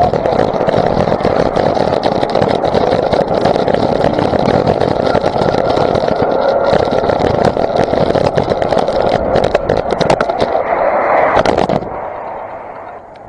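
Wind rush and engine noise of a motorcycle riding at speed on a wet road, picked up by a camera mounted on the bike or the rider, with constant buffeting on the microphone. About twelve seconds in it drops away sharply as the bike slows.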